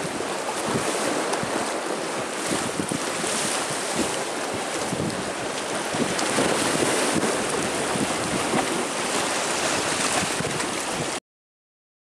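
Choppy lake water washing and splashing against a stone seawall and rocky shore, mixed with wind rushing over the microphone. The noise is steady and cuts off suddenly about a second before the end.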